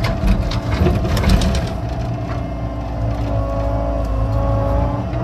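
Excavator engine running under load while digging, with a run of sharp clanks and knocks for about the first two seconds. After that it settles into a steadier drone, with a few held higher tones coming in about three seconds in.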